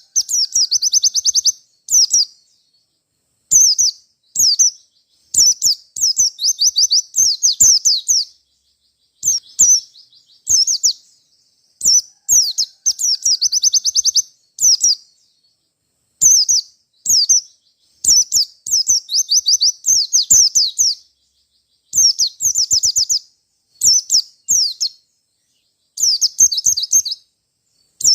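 White-eye (pleci) singing in quick, high phrases of rapid down-sweeping notes, each phrase under about a second with short pauses between, a few running into longer trills. This is the loud, repeated 'ngalas' challenge singing used to provoke other pleci into answering.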